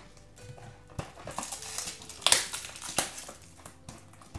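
Small cardboard box being handled and opened by hand: crinkling and scraping of the cardboard with scattered sharp clicks, the loudest rustles about two and three seconds in.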